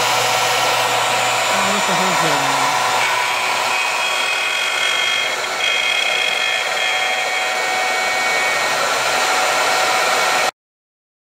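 Ridgid router on a Maslow CNC sled running at full speed as its bit cuts wood: a loud, steady whine with high tones. It cuts off suddenly about ten and a half seconds in.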